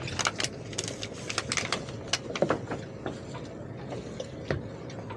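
Irregular sharp knocks and clunks on fibreglass boat decks and fittings as a person climbs from one boat onto a rafted-up sailboat, over a low, steady boat engine idle.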